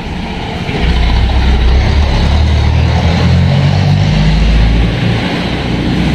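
An engine running steadily: a low rumble with a hiss over it.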